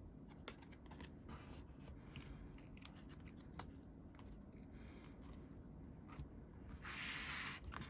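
Paper and card merchandise being handled: scattered faint taps and clicks, then a brief sliding rustle near the end, over the low buzz of a window air conditioner.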